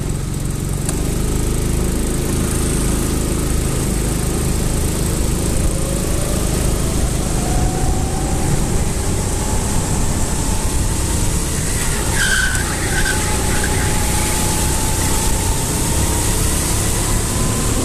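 Racing vehicle's engine running steadily with a low rumble, its pitch rising slowly through the middle as it gathers speed.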